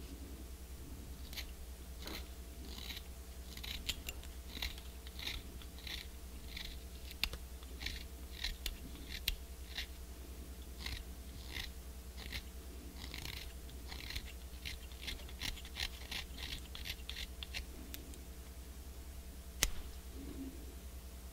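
A knife scraping a cane clarinet reed blank in short repeated strokes, about two a second with brief pauses, shaping the reed by hand. A single sharp click comes near the end.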